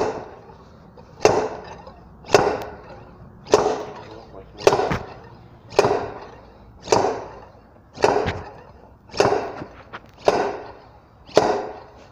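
Slide hammer on an injector puller striking its stop about eleven times, roughly once a second, each metal-on-metal blow ringing briefly. It is working a seized diesel injector out of a SsangYong Kyron cylinder head.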